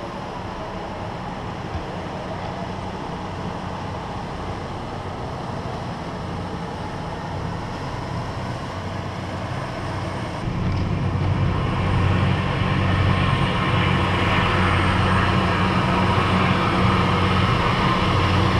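Steady low motor hum with a rushing noise over it, getting louder about ten seconds in.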